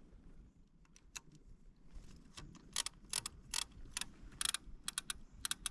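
Fishing reel clicking: a string of sharp, uneven mechanical clicks, a few at first and coming thick and fast over the last three seconds.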